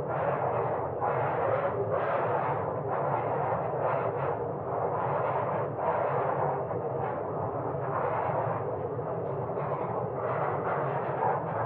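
Wood fire in a fireplace crackling and popping, a dense run of irregular small pops over a steady rushing hiss.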